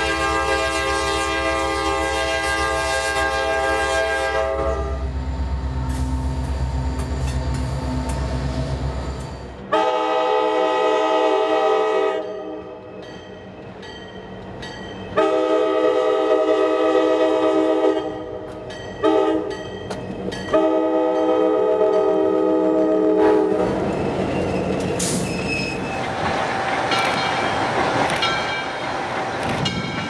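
A diesel freight locomotive's multi-chime air horn holds a chord for a few seconds, then the locomotive's engine drones as it passes. After a cut, another diesel locomotive's horn sounds four blasts, long, long, short, long: the standard grade-crossing warning. The train's wheels then clatter over the rail joints as it rolls by.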